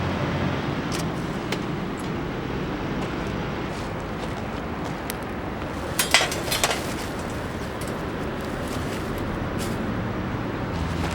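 Car driving with steady engine and road noise, with a short cluster of clicks and knocks about six seconds in.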